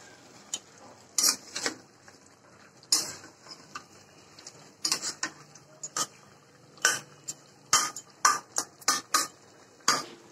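Spatula scraping and knocking against a metal cooking pot while stirring fish pieces through onion and spice masala. The sound is a run of irregular clinks and scrapes, some in quick pairs, with short pauses between.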